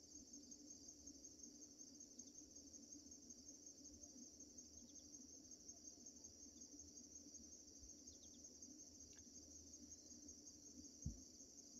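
Faint, steady chorus of crickets and other insects, a high, continuously pulsing trill. A single brief low thump sounds near the end.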